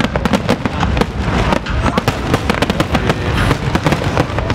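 Fireworks display: aerial shells bursting in a dense, unbroken barrage of bangs and crackles.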